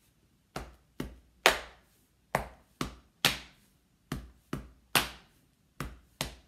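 Body percussion played with the hands, patting the chest in a repeating rhythm: groups of three quick strikes about half a second apart, the third in each group the loudest, four groups in all.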